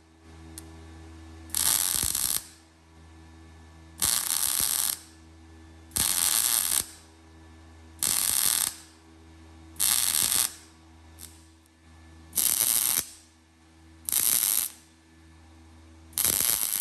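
Welder laying short welds on steel plate: eight harsh crackling bursts, each under a second and about two seconds apart, over the steady hum of the welding machine.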